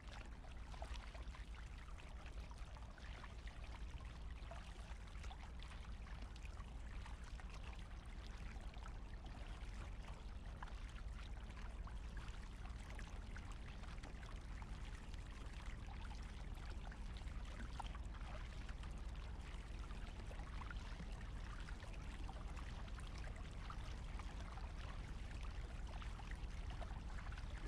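Water splashing and dripping from the blades of a double-bladed kayak paddle, stroke after stroke, over a low steady rumble.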